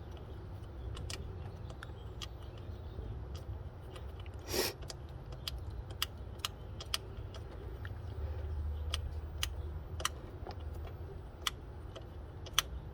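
Light metallic clicks and taps, irregular and scattered, from a hex L-wrench and a small bolt being handled by hand, with a brief scrape about four and a half seconds in, over a steady low rumble.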